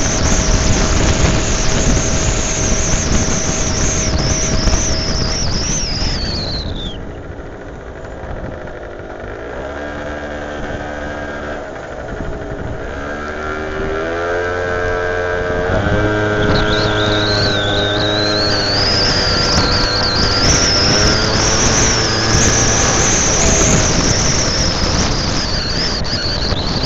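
Moped scooter engine under way, with wind rushing over the microphone. About seven seconds in it slows, its high whine falling away, and it runs quieter at low speed with the revs rising and falling. From about sixteen seconds it speeds up again, the whine climbing and the wind noise growing louder.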